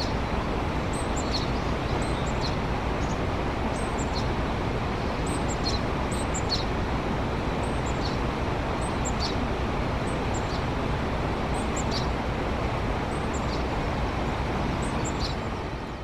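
Japanese tit giving short high chirps, each dipping in pitch, about one a second, over a steady loud rushing background noise.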